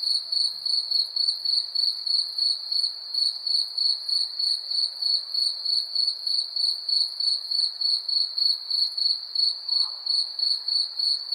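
A cricket chirping in a steady, even rhythm, about four high-pitched chirps a second, over a faint background hiss of night air.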